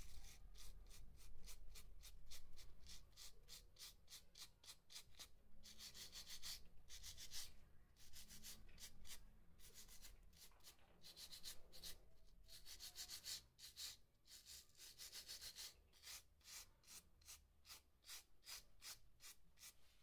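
Faint, quick back-and-forth scrubbing, about four strokes a second with faster stretches in places: a small pink rubbing block is worked over the contact pads of a remote control's rubber keypad to clean them.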